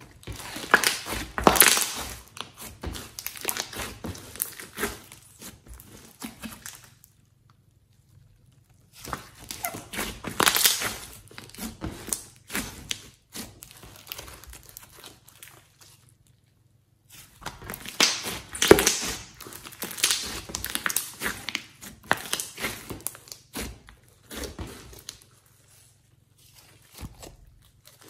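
Glossy slime being stretched, folded and pressed by hand, giving dense wet crackles and pops. It comes in three long bouts with short pauses between.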